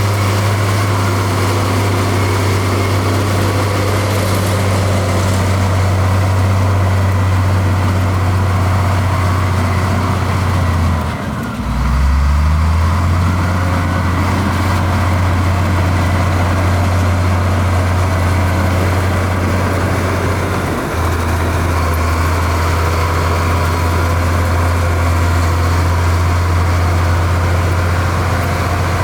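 Heavy diesel engine of a construction machine running with a steady low drone. About eleven seconds in, the sound dips briefly, then the pitch rises as the engine picks up again.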